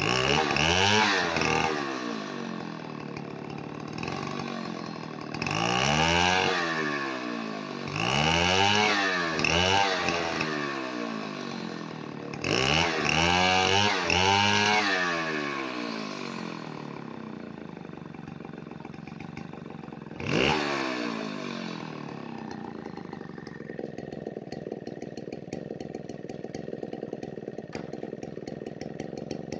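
Two-stroke CC7005 petrol chainsaw free-revving with the chain out of the wood: five throttle blips rise and fall in pitch over the first twenty seconds. Between the blips and after them it settles back to a steady idle.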